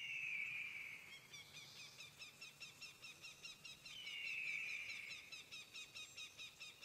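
Faint birdsong: a long screeching call, falling slightly in pitch, comes twice about four seconds apart, over quick, evenly repeated high chirping.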